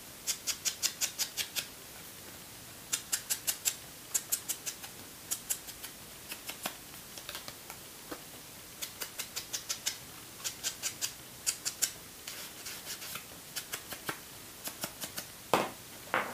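Foam ink dauber pounced on an ink pad and dabbed along the edges of cut paper pieces: quick runs of light taps, about six a second, in short bursts with brief pauses between.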